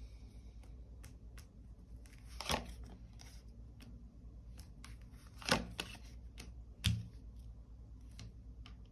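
Tarot cards being drawn from the deck and laid down: three sharp card snaps, the last with a soft thud on the table, and faint ticks of card handling in between.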